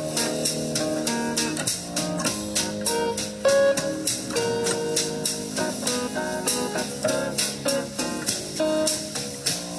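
Music playing: plucked guitar over a drum kit keeping a steady beat, in a blues style, the test music of a vacuum-tube hi-fi listening comparison.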